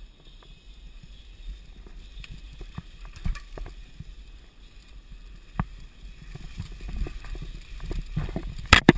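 Mountain bike rolling down a dirt forest trail: a steady low rumble of the tyres and bike, with scattered clicks and rattles over bumps. Two loud knocks near the end as the bike jolts.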